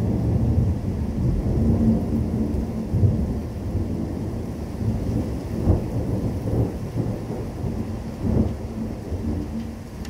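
Thunder rumbling almost without a break from a severe thunderstorm with nearly continuous lightning, swelling louder several times.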